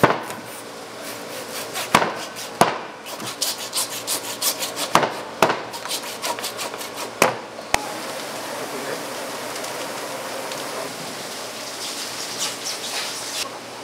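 A large tuna being cut up with a blade on a wooden cutting board: a run of quick scraping strokes with sharp knocks against the board for the first seven or so seconds, then steadier scraping and background noise.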